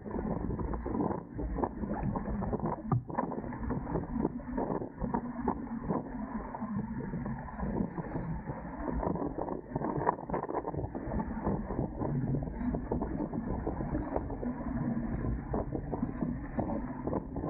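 Dart 18 catamaran under sail: steady rush of wind and water against the boat, with frequent small knocks and slaps throughout.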